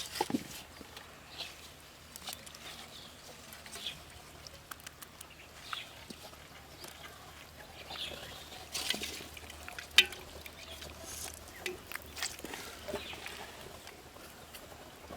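Small, scattered water splashes and wet handling noises, with one sharper knock about ten seconds in.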